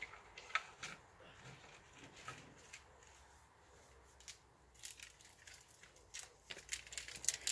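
Faint scattered clicks and crackles, sparse at first and growing busier in the last few seconds.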